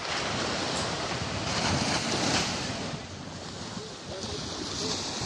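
Small waves breaking and washing up a sandy beach, the surf swelling about two seconds in and again near the end, with wind buffeting the microphone.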